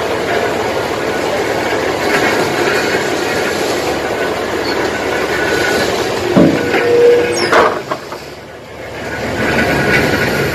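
Diesel engine on the salvage boat running steadily with a rhythmic knock. A few louder knocks and a sharp clank come about seven seconds in, and then the engine goes briefly quieter before picking up again.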